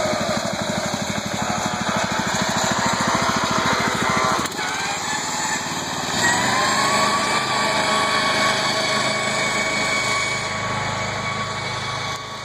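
Racing lawn mower's small engine running under way, its pitch rising and falling as the rider changes speed, with a sudden change in the sound about four and a half seconds in.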